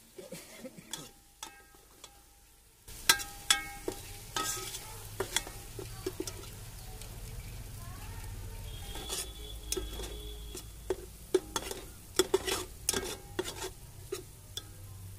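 Steel spoon stirring and scraping ginger, green chilli and garlic paste as it fries in oil in a metal pot, with frequent clinks against the pot over a steady sizzle. The first few seconds are quieter, with a few ringing clinks, and the sizzle comes up about three seconds in.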